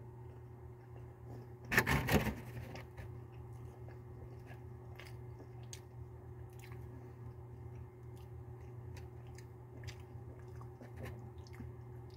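A person bites into a soft BBQ rib sandwich with a louder bite about two seconds in, then chews quietly with small wet clicks, over a steady low hum.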